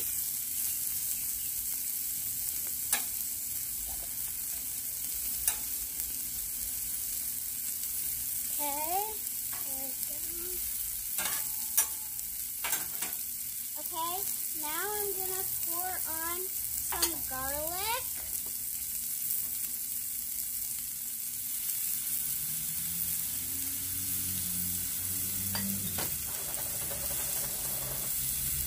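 Food sizzling steadily on a hot Blackstone flat-top griddle as tortellini is tipped on and spread with a metal spatula, with a few sharp clicks of the spatula on the steel. In the middle, a run of short rising-and-falling whistle-like notes sounds over the sizzle.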